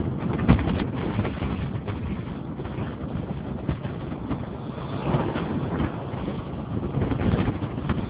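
Wind buffeting the microphone of a moving vehicle, a gusty rushing noise with road and traffic noise beneath it.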